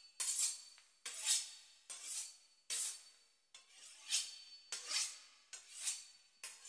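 Knife sawing through the crisp pastry crust of a beef Wellington: a run of short, rasping, crackly strokes, about one every second.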